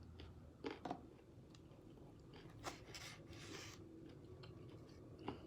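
Person faintly chewing a mouthful of shrimp and vegetable hibachi, with a few soft clicks and a brief crunchy noise about three seconds in.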